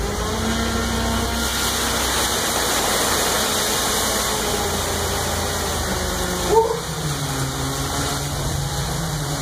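Olympia ice resurfacer's engine running steadily while its raised snow tank dumps a gush of icy water and slush onto a seated man. About six and a half seconds in, a short rising cry.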